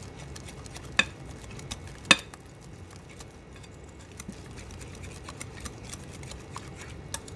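A utensil stirring thick tempura batter in a glass bowl, with wet mixing and frequent light clicks against the glass. Two sharper, louder knocks come about one and two seconds in.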